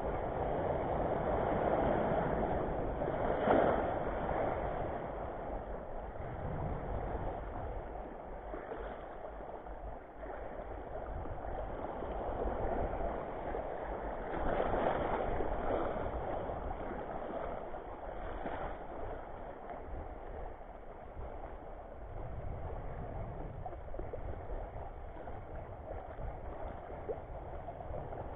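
Small waves washing and splashing over a shallow coral reef flat, swelling and easing every few seconds.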